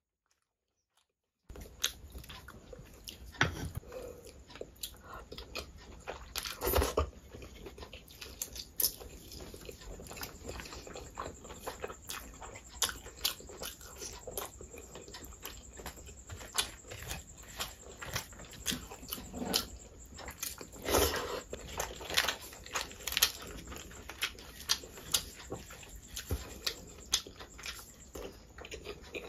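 Close-miked eating sounds of a person chewing rice and curry eaten by hand: irregular wet smacks, lip clicks and chewing. They begin after about a second and a half of silence.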